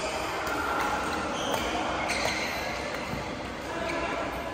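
Badminton rally: several sharp racket hits on a shuttlecock at irregular intervals, over the steady background murmur of a large sports hall.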